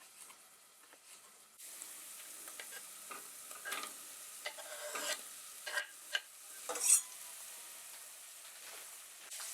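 After a quiet start, food begins sizzling in a frying pan about a second and a half in, with a utensil stirring and scraping against the pan several times; the loudest scrape comes about two-thirds of the way through.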